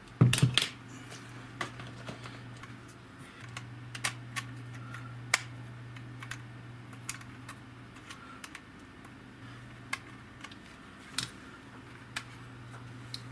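Small plastic clicks and taps of a Sony DCR-PC100E mini DV camcorder and its soft case being handled, scattered irregularly, with a couple of louder knocks just after the start. A steady low hum lies underneath.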